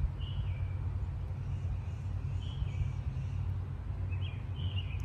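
Northern cardinal singing: short whistled phrases that step down in pitch, repeated every couple of seconds and coming closer together near the end, over a steady low rumble.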